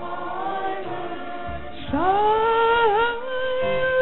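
Church choir singing a hymn in long held notes, swelling louder about two seconds in.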